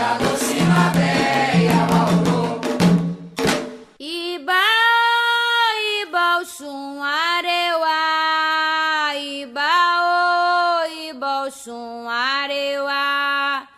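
Candomblé ponto singing: a choir singing over percussion breaks off about four seconds in. A single high voice then sings unaccompanied, holding long notes that step up and down between short breaths.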